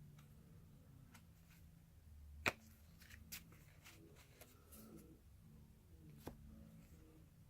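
Faint handling of 1981 Donruss baseball cards as they are flipped through one by one: soft rustling and light clicks, with one sharper click about two and a half seconds in.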